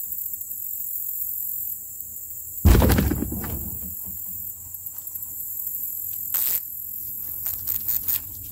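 Canoe hull smacking into the bank: one loud thump about two and a half seconds in that rings on for about a second, followed by a few lighter knocks and clicks. Insects buzz steadily in the background.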